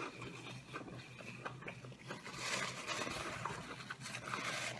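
Someone quietly chewing food close to the microphone, with soft wet mouth clicks and smacks.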